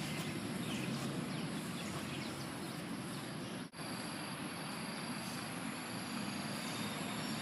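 Steady outdoor park ambience with faint, high-pitched trills repeating through the second half. There is a momentary dropout about halfway through.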